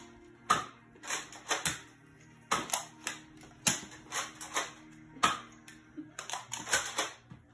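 Nerf dart blasters firing again and again, about fifteen sharp snapping shots in irregular quick runs of two to four.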